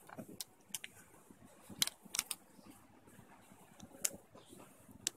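A few faint, scattered crinkles and clicks from the plastic wrapper of a Kinder milk-slice snack being handled as it is eaten.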